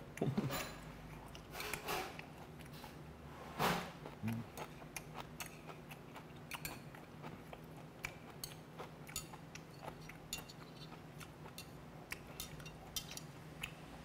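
Metal chopsticks clicking and tapping against plates and a pan as food is picked up, with chewing, over a faint steady low hum. A louder brief sound comes about four seconds in.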